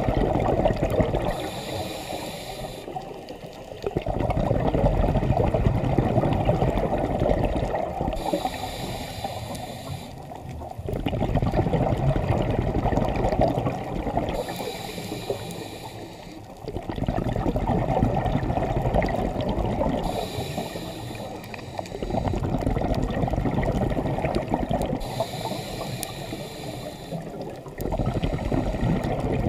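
Scuba diver breathing through a regulator underwater: a short hissing inhalation followed by a longer bubbling rush of exhaled air, about five breaths at an even pace.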